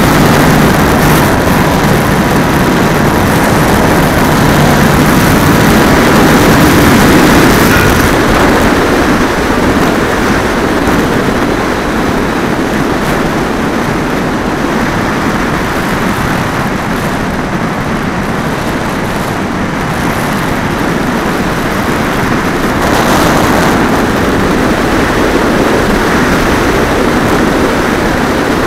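Onboard recording of an RC model airplane in flight: the propeller drive runs for the first several seconds under a steady rush of air, then the motor stops about eight seconds in and only the airflow rushing past the fuselage is heard as the plane glides.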